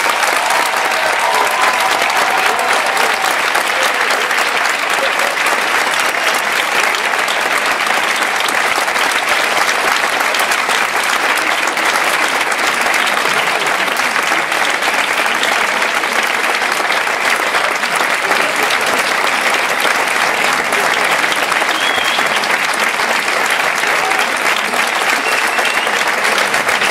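A large crowd applauding steadily and without a break.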